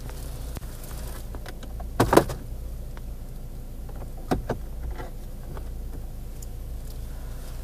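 Sharp clicks and knocks inside a car, over a steady low hum. The loudest is a short clatter about two seconds in, with another pair of knocks around four and a half seconds.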